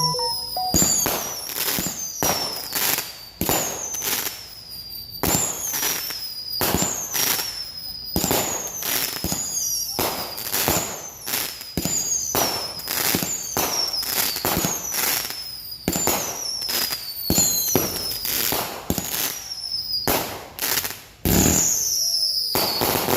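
Fireworks going off in quick succession: sharp bangs, each with a high whistle that falls in pitch, about one a second. Near the end, after a short lull, comes a deeper, heavier boom.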